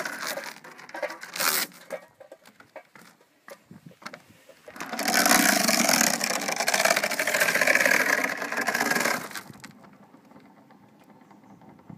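Iron chain of a hand-hauled chain ferry scraping and clattering over the boat's bow as it is pulled: a couple of seconds of clattering with clicks, then a loud steady scrape lasting about four seconds that stops fairly suddenly.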